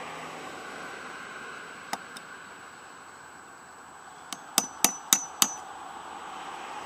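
Claw hammer tapping metal on a lawn-tractor electric starter motor being reassembled. There is one light tap about two seconds in, then a quick run of four sharp, ringing metallic strikes about four and a half seconds in.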